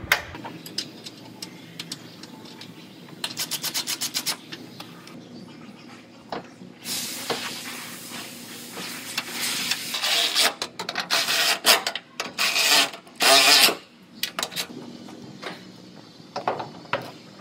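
Hand tools working on car door hinges and sheet metal: a run of quick, even ratchet-like clicks, about ten a second, a few seconds in. Then several loud rasping, rattling bursts and sharp metal knocks.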